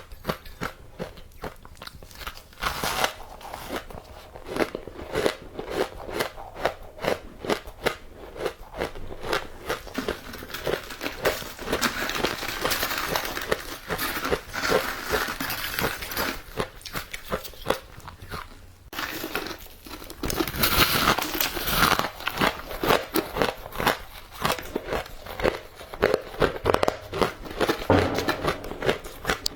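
Close-up crunching and chewing of matcha-powdered ice: a rapid, irregular crackle of bites and chews, with fuller stretches of grinding about halfway through and again about two-thirds in.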